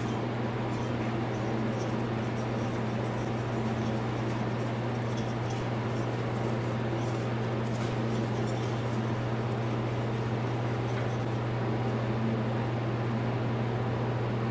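Steady low hum throughout, with faint clicks and scrapes of a wrench unscrewing the spark plug from a 50cc two-stroke dirt bike engine.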